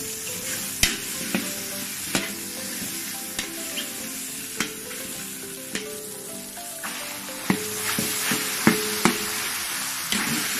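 Food sizzling in oil in a hot pan while a spatula stirs it, knocking and scraping against the pan every second or so.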